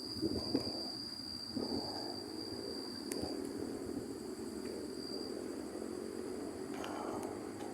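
Wind rushing through trees at night, a steady low rush that swells slightly in gusts, with a thin steady high-pitched tone above it that fades out about halfway through.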